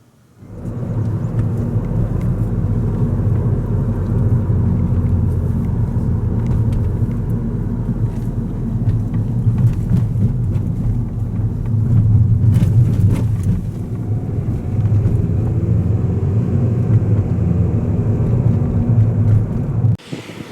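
Steady, loud low rumble of a vehicle in motion, starting suddenly and cutting off abruptly near the end.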